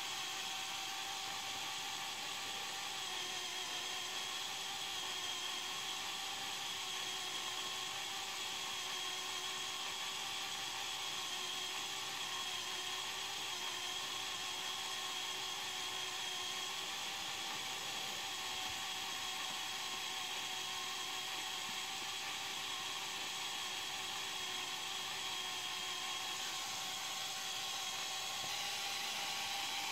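Lego Power Functions electric motor and gear train spinning the main rotor of a Lego Technic helicopter model, a steady whine whose pitch dips slightly about three seconds in.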